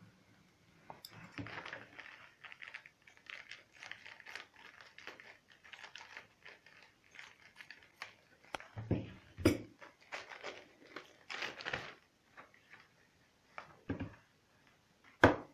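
Hands handling a plastic network cable tester and small parts: light rustling with scattered clicks and knocks, and one sharp click near the end.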